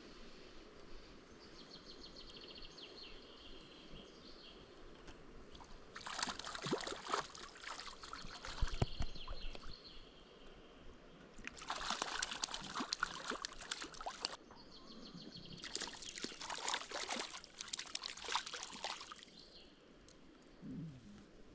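Water sloshing and splashing in three bursts of a few seconds each, over a faint steady background.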